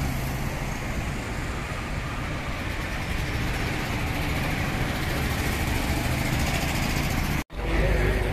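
Street traffic: a steady hum of passing vehicles and engines. It cuts out for an instant near the end and resumes a little louder.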